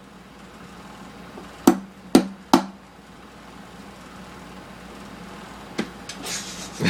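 Hammer tapping screws to set them in wood: three sharp taps about half a second apart, then one lighter tap near the end.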